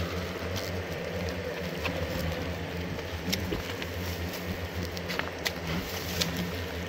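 Hornets buzzing around their ground-level paper nest, a steady low drone, with a few soft clicks scattered through it.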